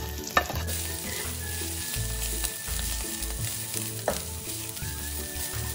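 Shredded cabbage sizzling in hot garlic oil in a wok as it is stir-fried with a spatula, with a couple of sharp clicks of the spatula against the pan, about half a second in and again about four seconds in.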